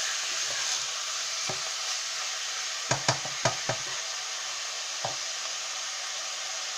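Beef frying in olive oil in a pan, a steady sizzle, with a stirring utensil knocking against the pan: once early, a quick run of four knocks about three seconds in, and once more near the five-second mark.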